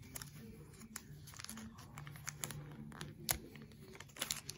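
Clear plastic packaging crinkling and crackling in the hands as it is worked open, in irregular small clicks with one sharper crack a little over three seconds in.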